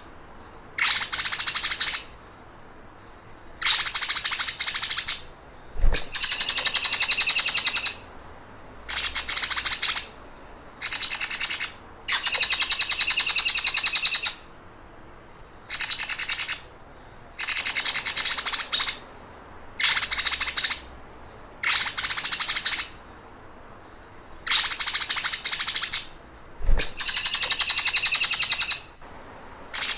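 A songbird's very fast, buzzing trill in the 'sewing machine' (mesin jahit) style, repeated in bursts of one to two seconds with short pauses, about a dozen times.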